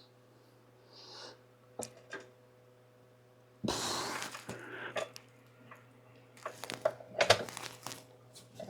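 Scattered metal clicks and knocks as a motorcycle rear wheel is lifted and lined up in the swingarm for the axle, with a short rushing noise a few seconds in, over a steady low hum.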